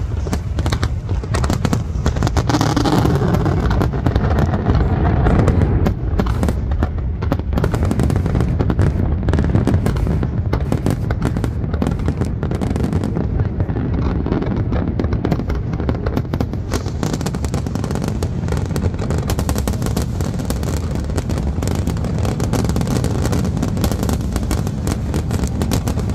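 Large aerial fireworks display: shells exploding in a dense, nearly continuous barrage of bangs.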